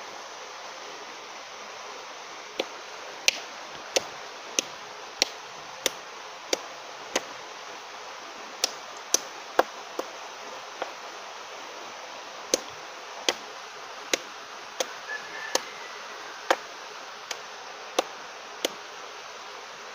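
Hand-held stone pounding rotten oil-palm fruit against a concrete floor to crush it into bait: about twenty sharp knocks, roughly one every half to three-quarters of a second, starting a couple of seconds in and pausing briefly about halfway, over a steady background hiss.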